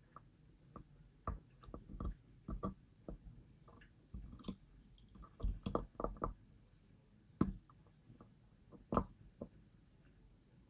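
Irregular small clicks and taps of a lock pick and tension wrench working the pins of a DOM ix 10kg lock while it is being picked.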